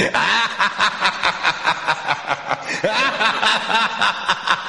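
Soundtrack of quick, regular pulses, about four a second, overlaid with voice-like sliding pitch sweeps, under the animated opening titles.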